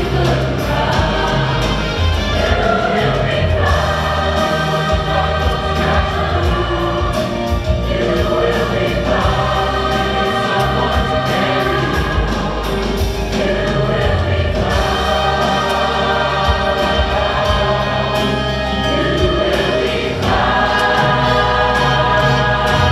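Large mixed choir of high school students singing in parts, holding long chords that change every few seconds over a steady low bass line.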